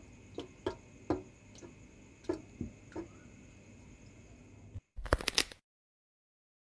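Scattered light taps and clicks of kitchen utensils at a counter over a faint steady hum. About five seconds in the sound cuts out completely, and a short, loud burst of noise breaks in.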